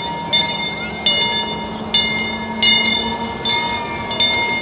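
Miniature train's locomotive bell ringing, six even strokes about every three-quarters of a second, each stroke ringing out and fading, over a steady low hum from the passing train.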